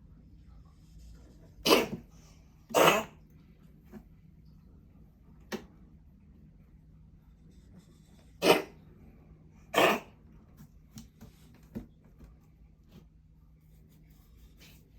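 A pet coughing: two pairs of short coughs, the second pair about six seconds after the first, with a few small clicks in between.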